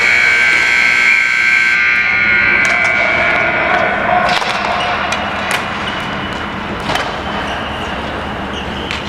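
Rink scoreboard buzzer sounding one long electronic tone that holds for about two seconds, then dies away in the hall's echo. After it come scattered sharp knocks over the general rink noise.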